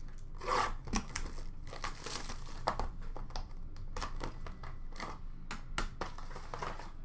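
Plastic wrapping of a trading card box crinkling as hands handle and open it, a string of irregular rustles.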